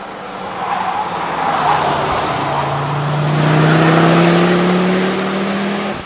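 Ford Focus RS rally car's turbocharged five-cylinder engine accelerating toward the listener, its note rising steadily in pitch over tyre and road noise. It grows louder as the car approaches and is loudest about four seconds in.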